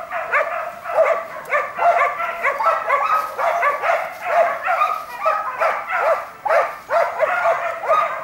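Hunting dog baying at a wild boar, barking rapidly and without pause, several barks a second.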